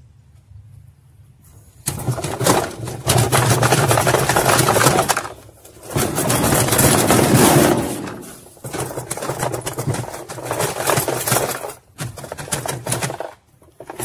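Plastic wash tub of a Frigidaire top-load washer being rocked and wrenched back and forth on its seized transmission shaft, a loud rattling, scraping clatter in several spells of a few seconds each, starting about two seconds in. The tub is stuck to the shaft by mineral scale and is working loose.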